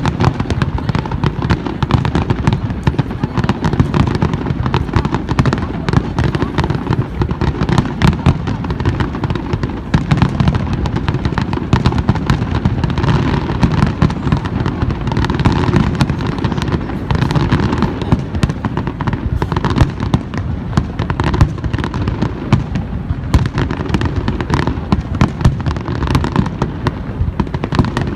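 Aerial fireworks display: a dense, unbroken barrage of bursts and crackling, many reports every second.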